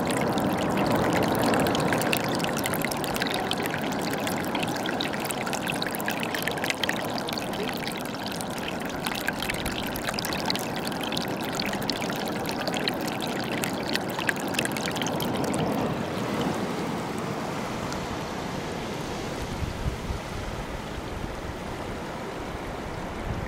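Seawater streaming and trickling over seaweed-covered rocks, dense with small splashes and crackles. About sixteen seconds in it gives way to a softer, duller wash of the sea with some low rumble.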